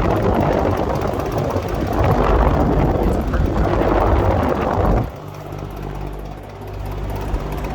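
Eskimo two-speed box fan running with a rattle from something loose inside, likely in the motor. About five seconds in the loud rush drops off suddenly, leaving a steadier, quieter motor hum.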